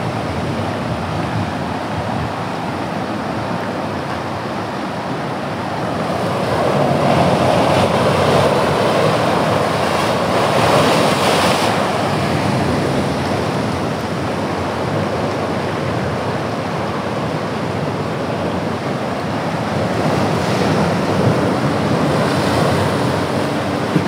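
Ocean surf breaking and washing over a rocky shore shelf and among boulders, a continuous rushing that swells louder for a stretch about six to twelve seconds in.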